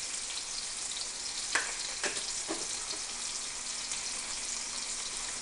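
Diced chicken breast frying in oil and butter in a cast iron skillet: a steady sizzling hiss, with a few light ticks about one and a half to two and a half seconds in.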